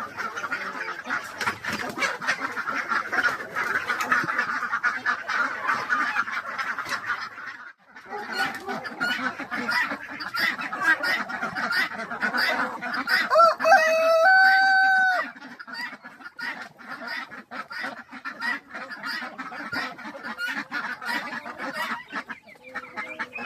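A flock of backyard chickens clucking and chattering continuously. A rooster crows once, loud and drawn out, about two-thirds of the way through.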